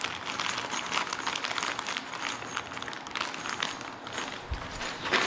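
Rustling and light clicking of small furniture-assembly hardware pieces being handled and sorted out of their packaging, with a soft thump near the end.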